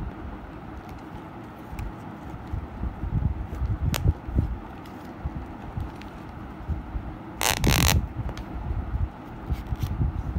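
Close-up handling noise of a leather belt with a metal buckle being turned over in the hands: low rubbing against the microphone, a sharp click about four seconds in, and a brief loud rasp about three quarters of the way through.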